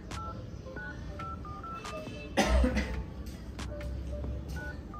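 Tecno smartphone's dialer keypad beeping as a code is tapped in: a quick run of short touch-tone beeps, one per key press, in the first two seconds and another near the end. A loud cough comes about two and a half seconds in.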